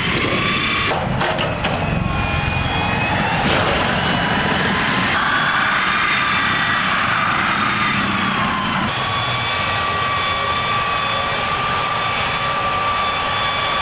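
M1150 Assault Breacher Vehicle's gas turbine engine running: a steady high whine over a heavy rumble, with the whine's pitch shifting a few times.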